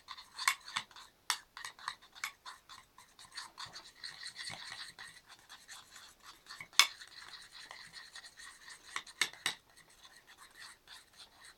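Spoon stirring slime in a plate, scraping and tapping against it with irregular sharp clicks; borax activator is being mixed into the glue as the slime firms up.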